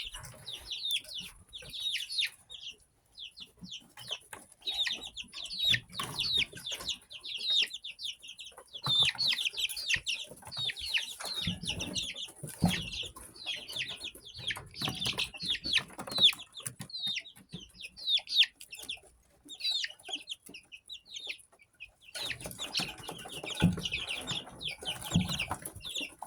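Young chickens peeping rapidly, many short falling chirps overlapping one another, with scattered scratching and a few soft thumps.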